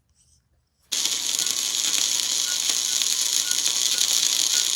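Chicago Electric Flux 125 flux-core wire welder striking an arc about a second in and running a bead: a steady crackling sizzle that stops abruptly near the end.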